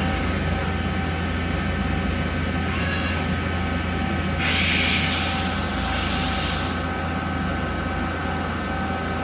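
Mazak QTN 200 CNC lathe running with a steady hum and several steady whining tones. About four seconds in, a loud hiss starts and lasts about two and a half seconds, then stops.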